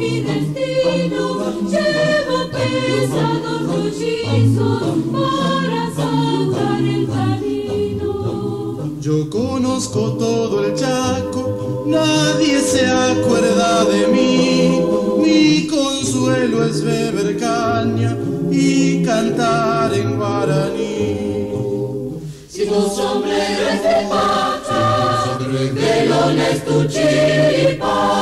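Polyphonic choir singing unaccompanied in several parts, heard from a 1986 cassette recording, with a short break in the singing about three quarters of the way through.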